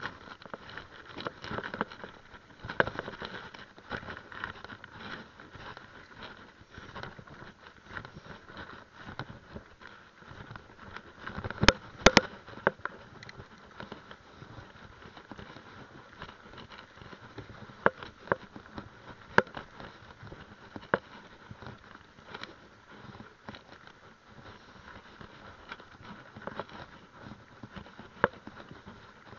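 Mountain bike ridden over a rough dirt trail, heard through a handlebar-mounted camera: a steady rattle and rumble of tyres and frame, broken by sharp knocks from bumps, the loudest two close together about twelve seconds in.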